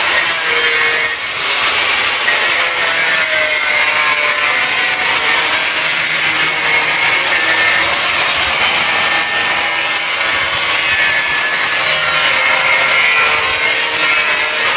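A 6-inch angle grinder runs steadily as it grinds the fibreglass-covered urethane foam edges of a sculpture: a continuous gritty grinding noise with a wavering motor whine through it, briefly dipping about a second in.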